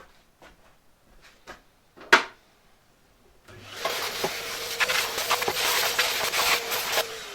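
A few light clicks and a sharp knock, then a Henry vacuum cleaner switched on about three and a half seconds in, running with a loud suction hiss over a steady motor hum. It is switched off near the end, its motor winding down with a falling whine.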